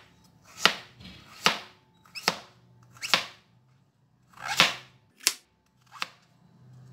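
Kitchen knife chopping a carrot into strips on a plastic cutting board: seven sharp knocks of the blade striking the board, a little under a second apart.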